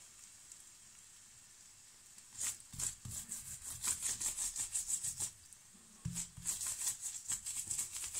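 Steel spoon spreading ghee over a stuffed paratha on a hot tawa, rubbing in quick back-and-forth strokes several times a second, with a light sizzle. The strokes begin about two seconds in, pause briefly about five and a half seconds in, then resume.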